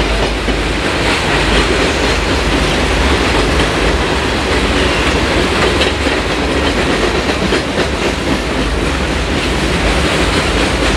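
Freight train of open-top hopper cars rolling past at close range: a steady, loud low rumble of steel wheels on the rails, with faint scattered clicks.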